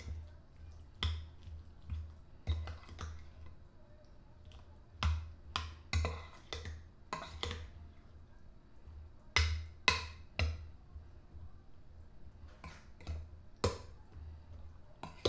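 Metal spoon stirring wet baked beans in a glass baking dish, clinking and knocking against the glass at an irregular pace, with the loudest knocks about ten seconds in.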